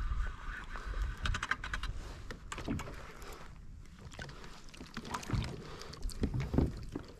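Fishing reel being cranked, with a steady high whine that stops about a second and a half in, and rapid rattling clicks of the reel and line. Then scattered knocks and low bumps as the line and a small fish are handled at the side of the kayak.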